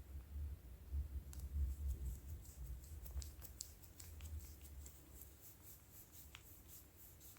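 Faint small clicks and ticks of parts being handled as the snowmobile's throttle lever housing is closed back up, over a low rumble that fades out about halfway through.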